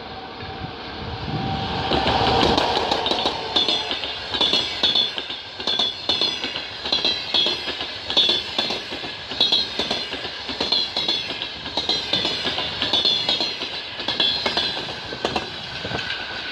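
Passenger train hauled by an EP20 electric locomotive passing. The sound swells about two seconds in, then the wheels clack over the rail joints in pairs roughly every second.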